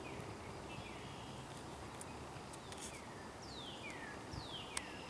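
A bird calling in a series of clear descending whistles, roughly one a second, the later ones longer sweeps from high to low, over a faint low rumble. A single sharp click comes near the end.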